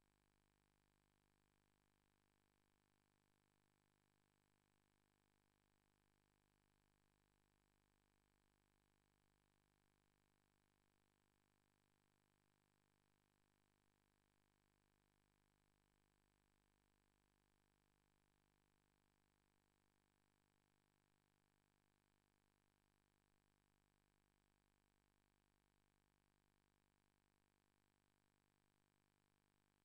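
Near silence: a blank recording with only a very faint, unchanging electronic noise floor.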